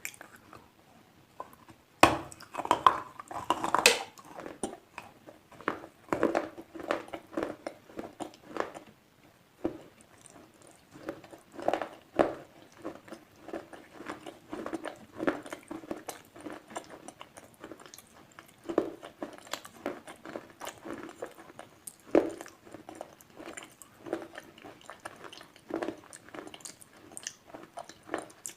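A person biting and chewing slate pencils: sharp, crunchy bites, loudest in a cluster about two to four seconds in, then repeated crunching chews with brief pauses.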